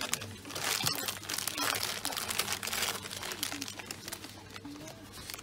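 Wrapping paper crinkling and tearing in uneven bursts as a cat claws and rips at a wrapped present.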